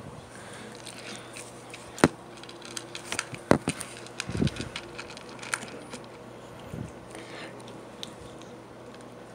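Kitten scratching and digging in cat litter: a scatter of sharp clicks and scrapes, with a couple of dull thumps.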